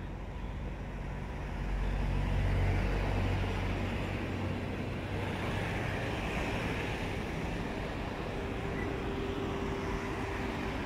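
Road traffic on a suburban main road: a passing vehicle's engine rumble, loudest about two to three seconds in, then steady tyre and traffic noise. Another engine's steady tone joins near the end.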